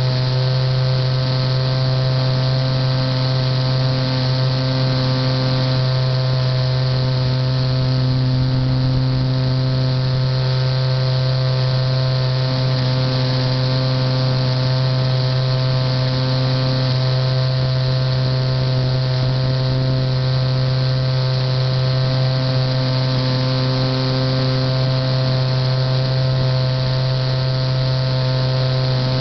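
Motor and propeller of a radio-controlled Titan J3 model airplane in steady cruising flight, heard from a camera on board: a constant drone that holds one pitch, with air rushing past.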